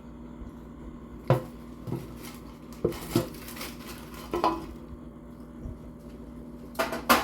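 Dishes and utensils clinking and clattering in a handful of separate knocks, the loudest cluster near the end, as food is handled at the table.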